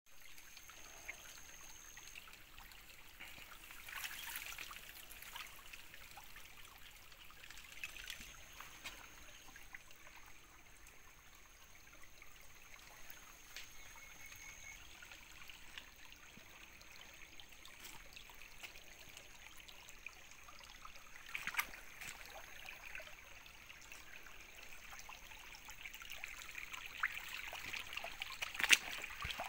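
Shallow creek water trickling over stones, with a few sharp knocks. The water grows louder near the end, running fast through a gold-panning sluice box.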